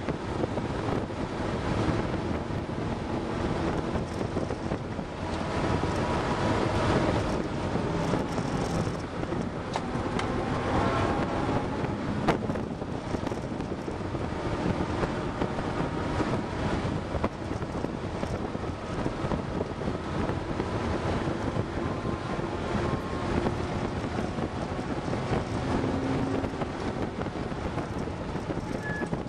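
Car engine pulling hard and easing off on track laps, its pitch rising and falling with acceleration and gear changes, under heavy wind and road noise heard from inside the cabin.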